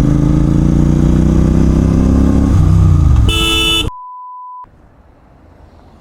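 Motorcycle engine running loudly at steady revs, its pitch falling as the revs drop about two and a half seconds in. A short horn-like tone follows, then the sound cuts off abruptly. A steady beep lasts under a second, and after it only a faint low hiss remains.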